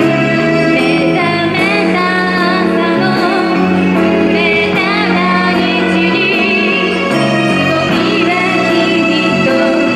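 A woman singing a J-pop song solo with full instrumental accompaniment, her voice wavering with vibrato on held notes.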